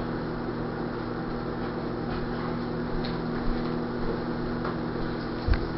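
Steady low hum of room tone, a few fixed tones under a faint even hiss, with a soft low thump near the end.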